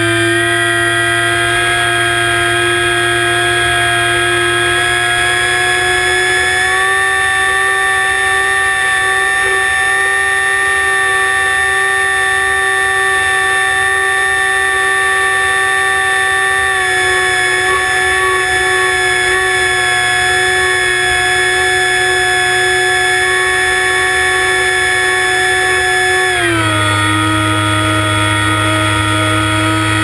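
ParkZone Icon A5's electric motor and propeller running at throttle, heard from the onboard camera as a steady high whine with several overtones. The pitch steps up about six to seven seconds in and drops sharply near the end as the throttle is changed.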